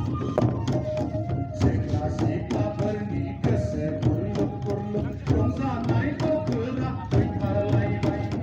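Music with drums and pitched instruments, the drum strokes sharp and repeated under a steady melody.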